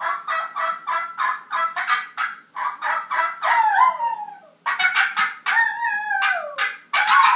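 Children imitating turkey gobbles with their voices: a quick run of short, high gobbling calls, about six a second, then longer calls that slide down in pitch.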